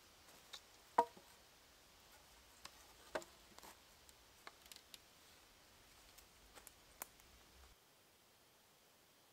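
Wooden poles knocking and clacking against each other while a bushcraft chair frame is handled: a few sharp wooden knocks, the loudest about a second in and others around three and seven seconds in, with lighter ticks and rustles between.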